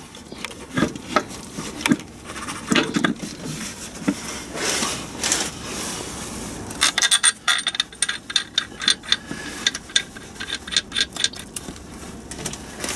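Metal clinks and scrapes as a heavy cast flywheel is shifted and pushed by hand onto the crankshaft flange and its locating pin, with a quick run of sharp clicks from about seven seconds in.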